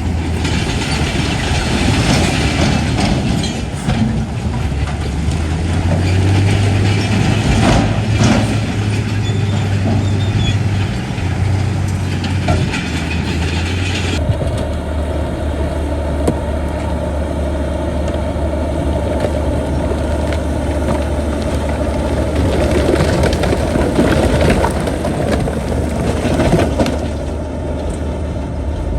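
Heavy diesel earthmoving machinery running steadily under work, a deep engine drone with rough mechanical noise over it. About halfway through, the higher part of the sound drops away abruptly.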